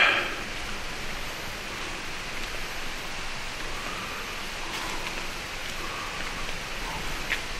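Steady, even hiss of ambient noise inside a road tunnel, opened by a short sharp noise at the very start. A faint, brief high tick comes near the end.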